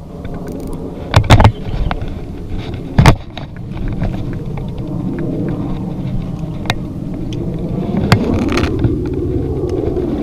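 Handling noise on a chest-mounted camera: a pair of loud knocks about a second in and another near three seconds, then a steady low rubbing rumble with a few light clicks as the wearer moves.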